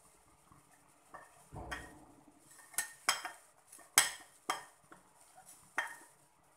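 A spoon clinking and tapping against cookware as spice powders are added to the pan: a dull thump a little way in, then about half a dozen sharp, separate clinks over the next few seconds.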